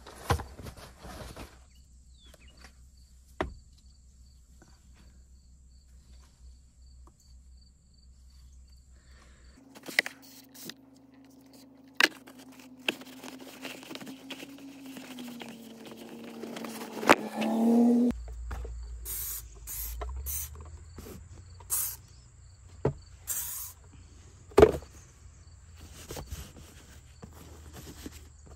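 Hand cleaning of a car's interior with wipes: scattered clicks, knocks and rustles as the plastic trim and seats are wiped down. For several seconds in the middle a steady low hum runs, dipping slightly in pitch and swelling before it cuts off suddenly.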